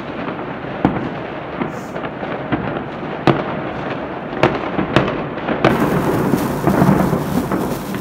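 Fireworks going off over a city: a steady crackle and rumble of many distant explosions, with sharper single bangs about every second. The sound grows fuller about two-thirds of the way through.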